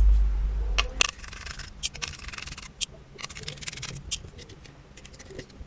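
Light plastic clicks and scraping as a DT830D multimeter's circuit board is worked out of its plastic case, held back by probe leads soldered to the board. The scraping is busiest between about one and three seconds in, followed by scattered light clicks.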